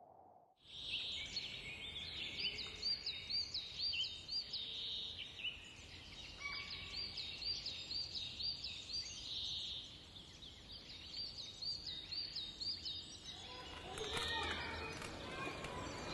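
Small birds chirping in a garden: many short, high notes repeated rapidly over a steady outdoor background hiss. It starts abruptly about half a second in, and the background grows louder near the end.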